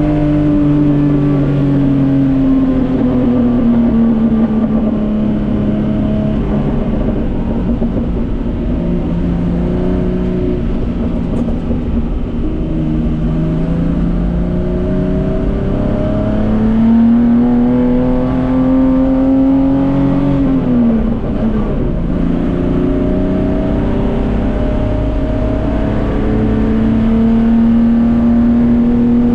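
Datsun 240K racing car's straight-six engine under full racing load. The revs fall in the first few seconds, hold, then climb slowly for a long stretch. They drop sharply about twenty seconds in, as on a lift or downshift, then climb again.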